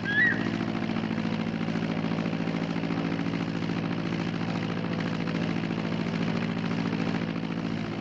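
Turboprop aircraft engines running steadily on the ground, an even hum. A crested serpent eagle's whistled call ends right at the start.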